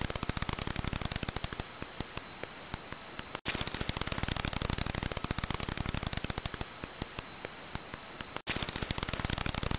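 Long-eared bat echolocation calls: fast trains of sharp, high clicks that come thick and rapid, then thin out to a few a second. Each run breaks off briefly and the same stretch starts again, about three and a half seconds in and again near the end.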